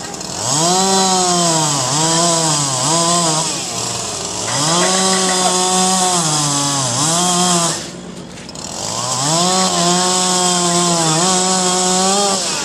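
Gas chainsaw running at full throttle through wood in three long cuts, its engine pitch sagging and recovering as the chain bites, with short pauses about four and eight seconds in.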